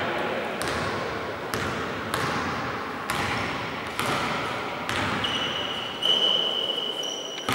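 Basketball dribbled on a wooden gym floor, a sharp bounce about once a second, each ringing briefly in the hall. From about five seconds in, a steady high-pitched tone holds for about two seconds.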